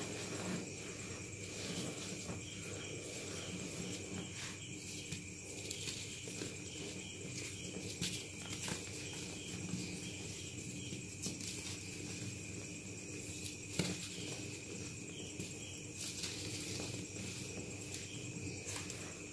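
Hands crushing and crumbling blocks of dyed gym chalk into powder: soft crumbly crunches with a few sharper crackles, the chalk still not fully dried from dyeing. A steady high-pitched tone runs underneath.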